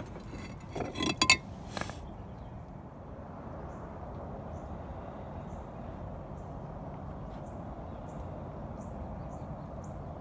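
Pieces of Eldorado Mountain Ledge stone veneer clinking and knocking together as a hand shifts them, a few sharp clicks in the first two seconds. Then steady background noise with faint high chirps repeating about twice a second.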